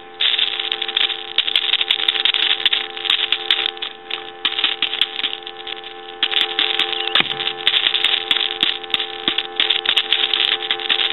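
Telephone dial tone with loud crackling static over it, coming in rough bursts as the handset is shaken. The static comes from the handset's aged carbon-granule transmitter, which has gone noisy with age.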